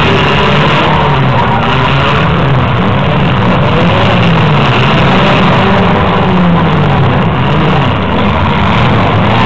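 Engines of several small demolition-derby cars revving up and down at once, loud, their pitches rising and falling and crossing one another.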